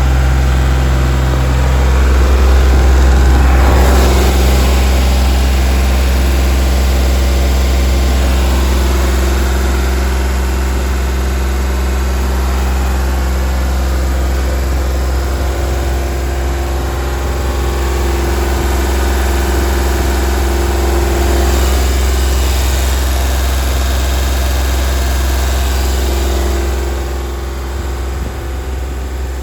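Deutz diesel engine of an Atlas Copco XAS 97 mobile screw compressor running at a steady speed, with a slight drop in level near the end.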